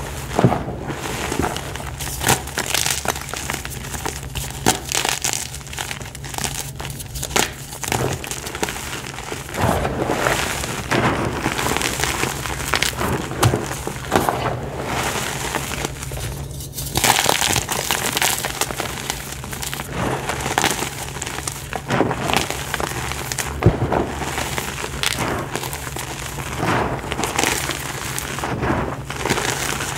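Clumps of dry, dusty earth being crushed and crumbled in bare hands: a steady run of gritty crunches and crackles, with sharper cracks now and then.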